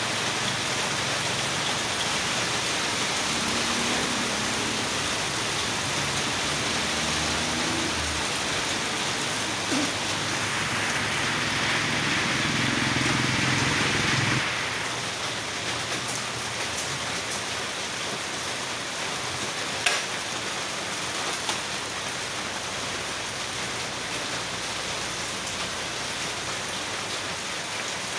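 Rain falling steadily, an even hiss. A low rumble sits under it for the first half and stops suddenly about halfway through.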